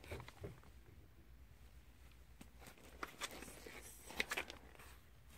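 Faint rustling and light clicks of plastic-wrapped hair extension packs being handled on a store display rack. There is a short cluster at the start and a louder one about three to four seconds in.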